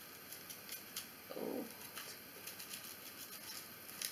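Faint rustling and light ticks from a small white drawstring jewellery pouch being handled and pulled open, with one short, low sound about a second and a half in.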